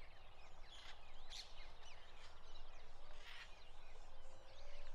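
Faint background of small birds chirping: many short, quick calls scattered throughout, over a low steady hum.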